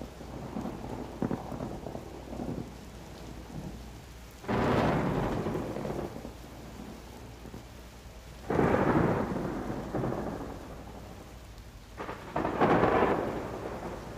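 Thunderstorm: rain falling steadily, with three thunderclaps about four seconds apart, each breaking suddenly and rumbling away over a couple of seconds.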